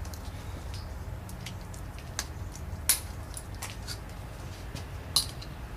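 A few light clicks and taps, seconds apart, from transmission parts being handled during a teardown, over a low steady hum.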